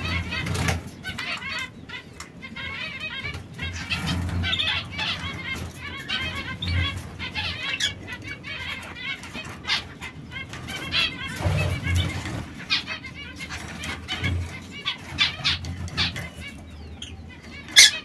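Caged canaries chirping and twittering, with wing flaps and sharp clicks as the birds land and shift on the perch and wire. A single loud click near the end is the loudest sound.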